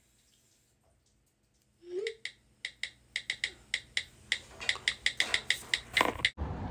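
A string of sharp clicks or taps starting about two seconds in, coming faster and louder, with a short low rising tone at their start. They cut off abruptly near the end, giving way to a steady rushing background noise.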